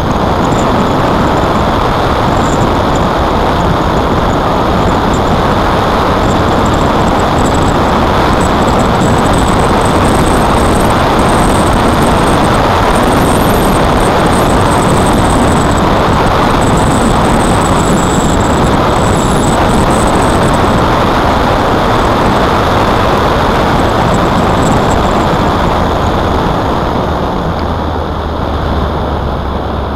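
Motorcycle riding along at road speed: a steady rush of engine and wind noise on the bike-mounted camera's microphone, easing a little near the end.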